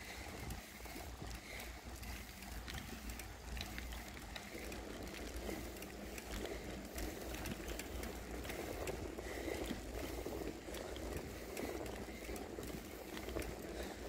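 Bicycle rear hub ticking as the rider coasts, over a steady rush of tyre and wind noise on the handlebar-mounted phone, the rush growing louder about four and a half seconds in.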